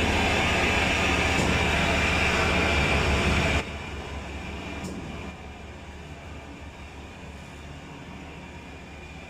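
Steady rumble and hiss of a fishing boat's engine at sea. It drops abruptly to a quieter steady rumble about three and a half seconds in.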